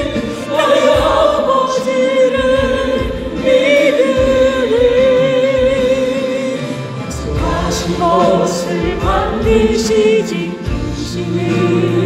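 A Korean Christian gospel song: voices holding long sung notes with a wavering vibrato over a steady accompaniment, between lines of lyrics.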